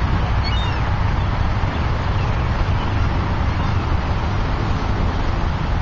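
Steady low rumble of wind buffeting the microphone, with a few faint high bird chirps about half a second in.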